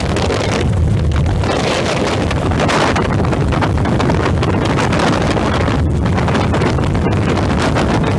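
Helicopter in flight, heard by a passenger aboard: steady engine and rotor noise with wind buffeting the microphone.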